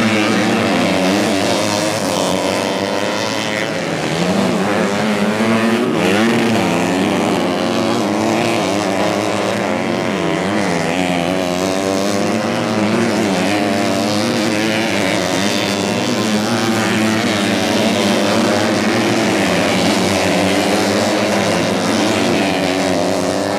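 Several modified 110cc underbone motorcycle engines racing on a dirt track, revving up and down over each other as the bikes accelerate, shift and back off through corners and jumps.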